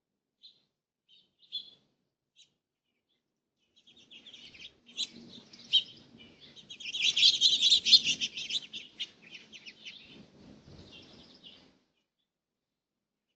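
Birds chirping: a few short single chirps, then a fast, dense run of high chirping that builds for several seconds, peaks, and dies away.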